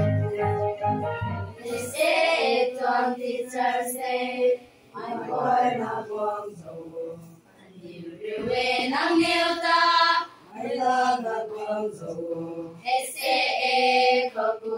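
A group of schoolchildren singing together in chorus. An electronic keyboard plays under them for the first two seconds, then drops out, and they carry on unaccompanied, phrase by phrase with short breaks.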